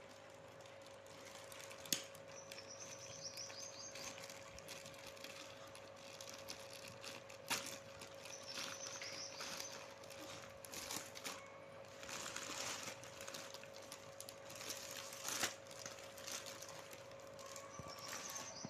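A parcel of sarees being unpacked by hand: packaging rustling and crinkling in irregular stretches, with three sharp clicks or snaps, a faint steady hum underneath and a few faint high chirps.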